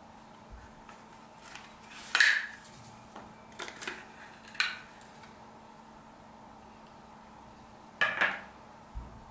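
Small hard objects clicking and clinking as a motor's packaging and small metal accessories are handled on a tabletop: a handful of short, sharp knocks, the loudest about two seconds in and a quick double click near the end.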